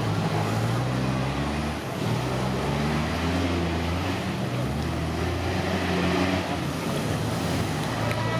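Toyota Land Cruiser's engine revving up and down under load as the 4x4 climbs a rough off-road slope, the revs rising and falling repeatedly with a brief drop just before two seconds in.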